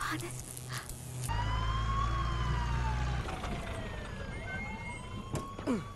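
Ambulance siren wailing, its pitch slowly rising and falling, over a low steady engine drone, after a burst of harsh noise in the first second.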